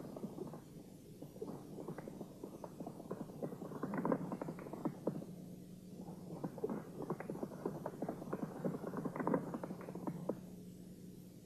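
Hoofbeats of a galloping horse on dirt: a fast, uneven clatter that stops about ten seconds in, over a steady low hum.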